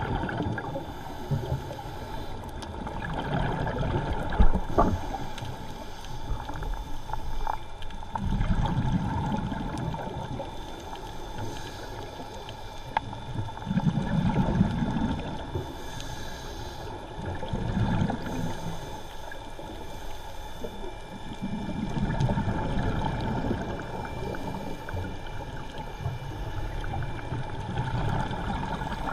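Scuba diver breathing underwater through a regulator, heard muffled by the camera's waterproof housing: exhaled bubbles gurgle out in swells every four to five seconds.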